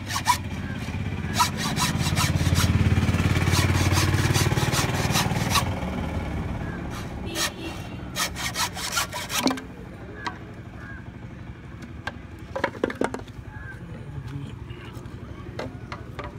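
Hacksaw cutting across a thick green bamboo stalk in quick back-and-forth strokes, which stop about ten seconds in. A low steady rumble swells and fades under the sawing in the first half.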